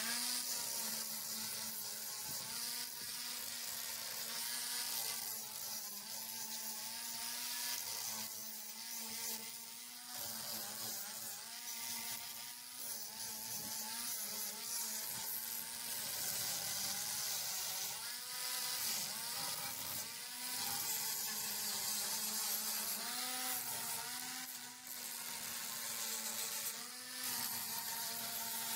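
Electric angle grinder running steadily as it grinds rust off an iron railing, its whine wavering in pitch as the disc is pressed against the metal. It spins down with a falling whine at the very end.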